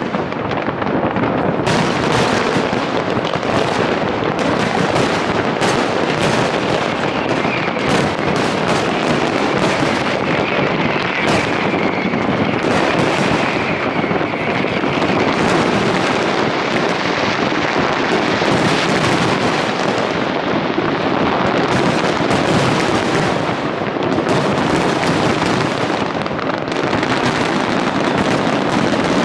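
Large fireworks display going off in a dense, unbroken barrage of overlapping bangs and crackling.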